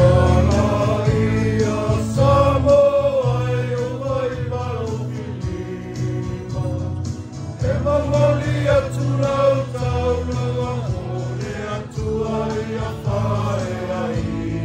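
Congregation or choir singing a Samoan offertory hymn in many voices, over held low accompanying notes.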